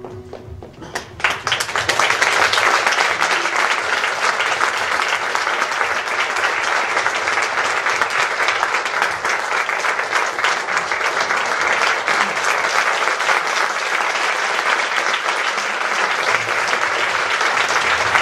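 Theatre audience applauding, breaking out about a second in as the last notes of the music fade, then going on in a dense, steady ovation.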